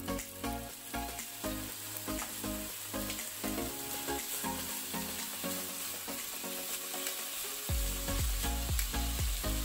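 Thin strips of sirloin steak sizzling in hot avocado oil in a frying pan, pushed around with metal tongs. Background music with a beat plays underneath, its bass coming in near the end.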